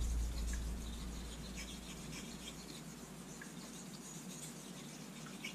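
Faint scratchy rubbing of a vintage straight razor being stroked across a King 1000/6000 combination whetstone during honing.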